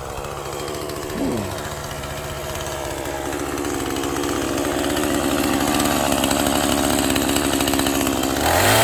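Gasoline chainsaw idling steadily, with a short blip of the throttle about a second in, then revving up again near the end.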